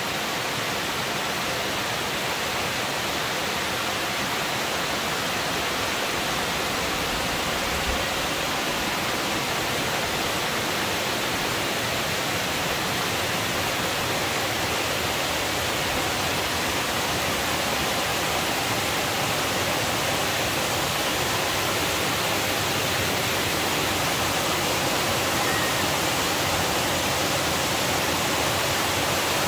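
Water pouring over a masonry dam's spillway and crashing into the pool at its foot: a steady, even rush of falling water.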